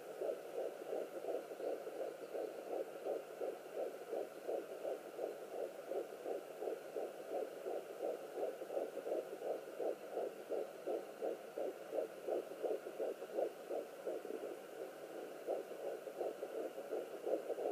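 Fetal heartbeat at 11 weeks of pregnancy picked up by a Sonoline B home fetal Doppler and played through its speaker: a rapid, regular whooshing pulse with a steady hum beneath.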